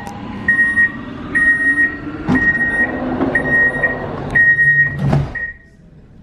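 Door-closing warning beeps of a Škoda Varsovia metro train: a high beep about half a second long, repeated about once a second, six times. The sliding doors close with a thud about five seconds in, and the beeping stops.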